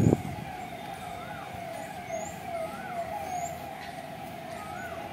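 Several birds calling over and over: short falling notes, a higher rising-and-falling note and brief high chirps, coming at uneven intervals.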